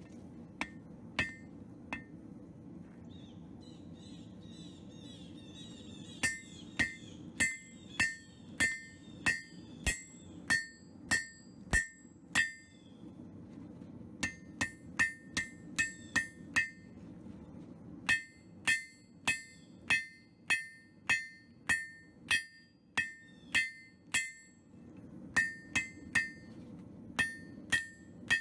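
Hammer forging steel on an anvil: runs of blows about three every two seconds, each with a bright metallic ring, after a few lone blows near the start and with short pauses between runs. A steady low hum runs underneath.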